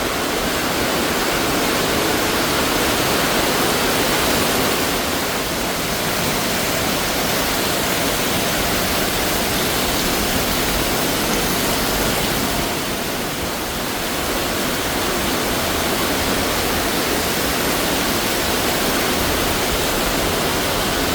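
Very heavy tropical rain pouring down in a steady loud hiss, with water streaming and splashing off surfaces. It eases briefly about two-thirds of the way through.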